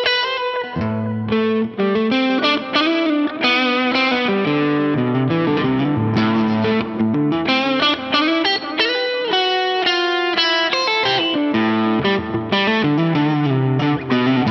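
Ibanez RG421HPAM electric guitar played through an amp on its DiMarzio Air Norton neck pickup in parallel mode: a continuous passage of quickly changing notes and chords.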